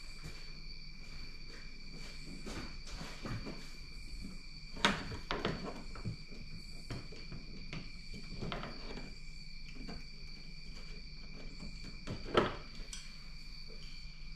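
Clicks and knocks of a car's windshield wiper arm being rocked and pulled off its pivot post, with two sharp knocks, one about five seconds in and one near the end. A steady high-pitched tone runs underneath.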